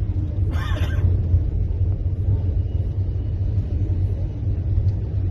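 Steady low rumble of a public-transport vehicle's engine and road noise heard from inside the moving cabin, with a brief vocal sound about half a second in.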